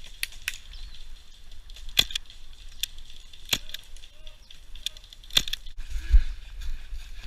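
Airsoft guns firing scattered single shots: sharp cracks at irregular intervals, about seven in all. A low rumble of wind on the microphone peaks about six seconds in.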